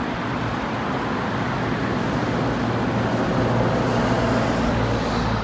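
Road traffic: a steady rushing noise with a low engine hum that grows louder in the second half, as a vehicle goes by on the road.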